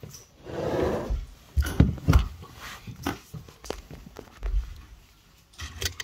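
Handling noise: a rustling stretch in the first second, then a few heavy thumps about two seconds in and scattered lighter knocks and clicks after.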